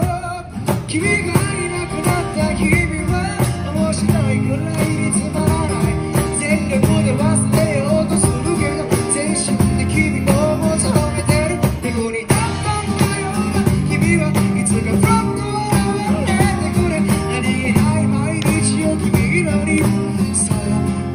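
Live acoustic band music: a singer through a microphone and amplifier, backed by a strummed acoustic guitar and a cajon with a small cymbal keeping the beat.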